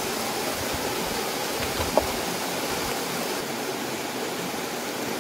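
Small waterfall pouring and splashing over rock boulders: a steady rushing of water. A brief sharp click about two seconds in.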